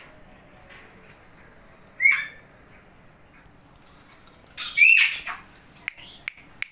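Alexandrine parakeet giving two short harsh squawks, the second louder and coming about two and a half seconds after the first, followed by a few sharp clicks.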